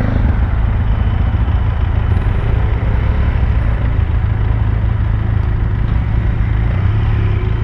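Bajaj Pulsar AS 200 motorcycle running steadily while being ridden, with a heavy, even low rumble.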